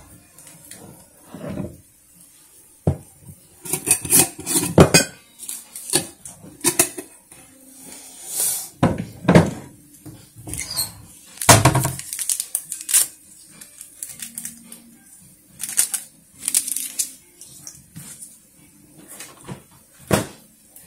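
Dishes and cutlery being handled: a string of irregular clinks and knocks, with a few heavier thuds among them.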